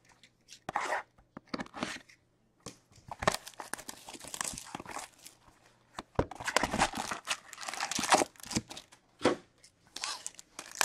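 An Upper Deck SPX hockey card box being torn open, with irregular tearing and crinkling of its wrapping and cardboard, then the foil card packs inside rustling as they are pulled out and laid down.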